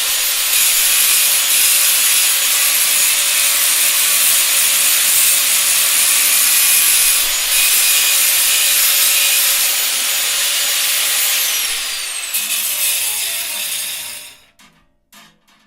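Circular saw cutting wood, a loud steady high whine with rasping. Past the middle its whine falls in pitch and the saw winds down to silence, followed by a few short clatters near the end.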